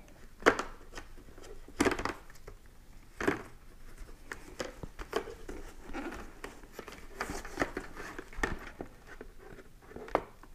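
Handling noise from gloved hands working the face shield onto an HJC i90 helmet: scattered plastic clicks and taps, about one every second or so, with rubbing and scraping in between.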